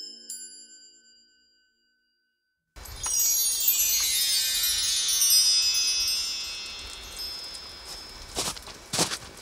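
Music fades out in the first second or so. About three seconds in, a cascade of chimes starts, many high ringing tones stepping down in pitch and dying away over a few seconds. Near the end, two boot steps crunch in snow.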